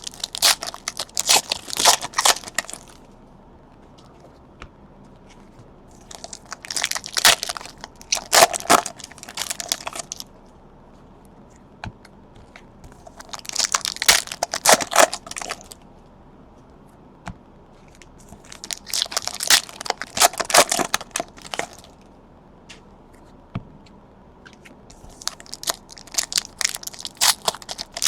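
Trading card pack wrappers being torn open and crinkled by hand, in five separate bursts of crackling about every six seconds.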